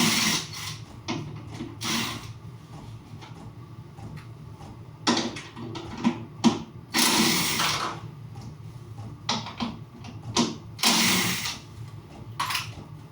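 Workshop handling sounds as a diesel heater mock-up is taken apart: irregular scraping and rustling bursts, a few sharp clicks and knocks of tools and parts, over a low steady hum.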